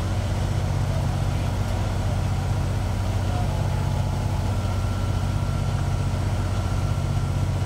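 Fire engine idling steadily, a constant low engine rumble.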